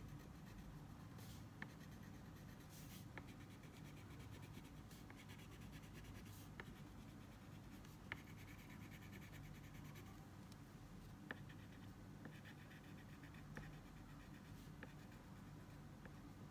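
Crayon scratching faintly on paper as a drawing is coloured in, in short rubbing strokes, with a few faint clicks scattered through.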